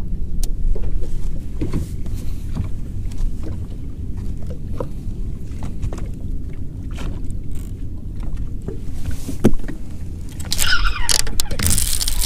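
Steady low rumble of a bass boat sitting on choppy open water, with scattered light knocks. About ten seconds in, a louder hissing burst joins it for a second or two.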